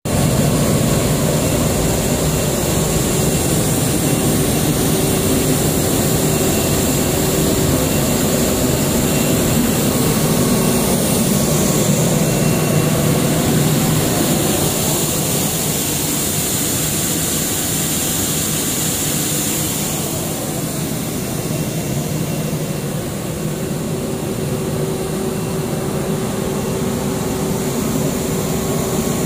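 Loud, steady drone of a polypropylene spunbond nonwoven fabric production line running: blowers, electric motors and rollers making a continuous mechanical noise with a high hiss and a few steady hums.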